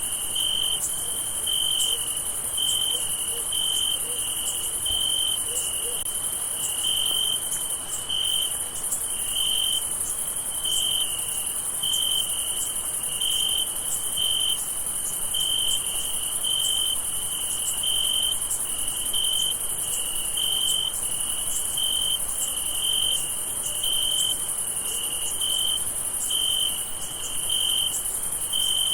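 Crickets chirping at night: a high, steady trill with a lower chirp pulsing evenly, about one and a half times a second.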